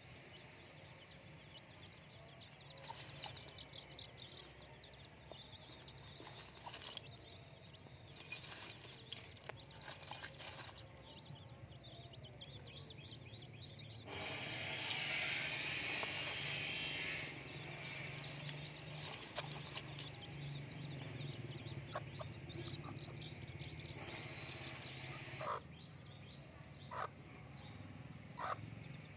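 Chicks peeping in short, high chirps over a steady low background hum. A few seconds of hissing noise come about halfway through. Near the end there are a few short, lower calls, likely from a hen.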